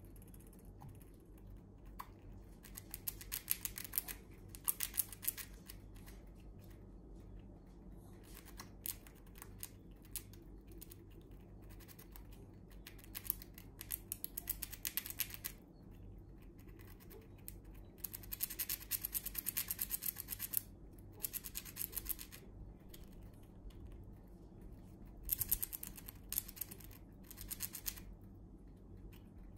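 Eurasian red squirrel gnawing open pine nuts, cracking the shells with its teeth: about six bouts of rapid, fine crunching clicks, each lasting one to three seconds, with short pauses between them.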